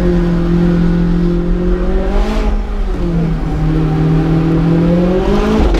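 McLaren 675LT's twin-turbo V8 running under load on a twisting road, heard from inside the cabin. The engine note holds steady, drops a little over two seconds in and stays lower, then climbs again near the end.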